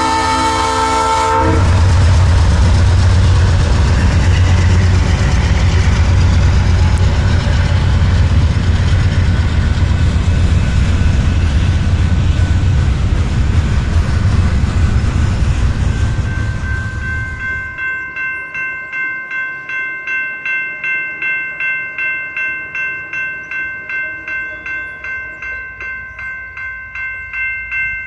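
BNSF freight train at a grade crossing: the diesel locomotive's horn chord cuts off about a second in, then the locomotives and freight cars rumble loudly past. After about 17 seconds the sound changes to a steady ringing that pulses about twice a second, typical of a railroad crossing bell, as another train approaches.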